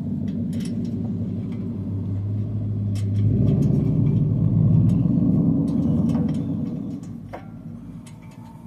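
A low rumble that builds, is loudest about four to six seconds in, and fades near the end, with a few faint clicks over it.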